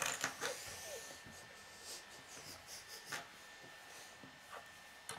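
Plastic K'nex pieces handled and set down on a wooden table: scattered light clicks and rustles, busiest at the start, with a sharper click about three seconds in. A faint steady high tone runs under it.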